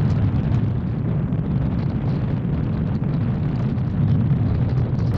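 Steady low road rumble of a car being driven, heard from inside the cabin.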